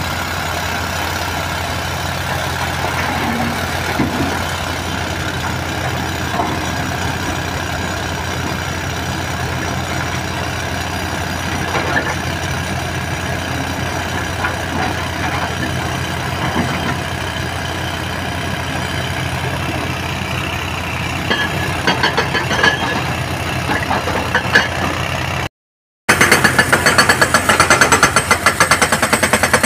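Heavy diesel engine running steadily at idle, with a few scattered knocks. Near the end a sudden break gives way to a louder engine sound with a fast, even pulsing.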